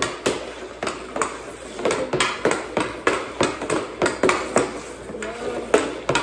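Hockey stick blade clacking against a puck on plastic dryland tiles in quick stickhandling, with about three sharp knocks a second.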